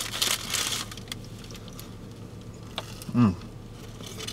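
A paper food wrapper crinkles for under a second at the start, followed by a few small clicks of handling. About three seconds in comes a short hummed "mm" of someone tasting food.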